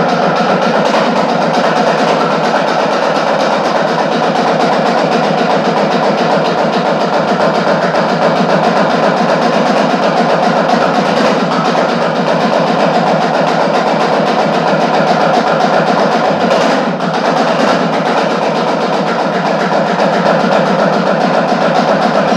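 Fast, continuous percussion: drums struck in a dense, steady roll, with a brief dip about seventeen seconds in.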